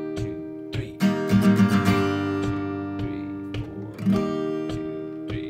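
Acoustic guitar with a capo strummed in a rhythm pattern: a quick run of strums about a second in, chords left ringing between strokes, and more strums near four seconds.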